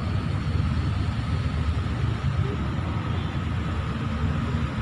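Steady low rumble of vehicle engines and road traffic, with a faint steady whine above it.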